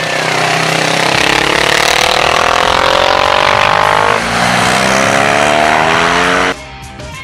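Twin-cylinder motorcycle engine accelerating under load: its pitch climbs steadily, drops back at an upshift about four seconds in, and climbs again before cutting off suddenly near the end, where guitar music takes over.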